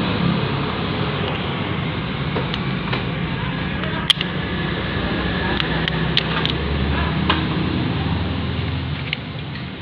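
Light metal clicks and taps as the parts of a scooter's centrifugal clutch shoe assembly are handled, the sharpest about four seconds in and a cluster of smaller ones after it, over a steady low background hum.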